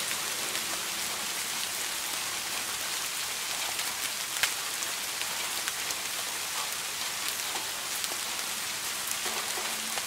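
Steady rain falling on a surface, an even hiss with scattered crisp drop ticks; one sharper drop stands out about four and a half seconds in.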